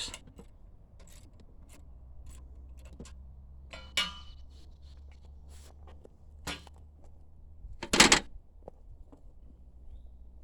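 Scattered clicks and knocks of wood and metal being handled while setting up an Alaskan chainsaw mill and its wedges, with a ringing metallic clang about four seconds in and a louder knock about eight seconds in.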